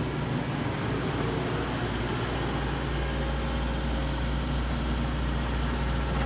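Tracked excavator's diesel engine running steadily as a low, even hum, over the rush of muddy water flowing down a landslide channel.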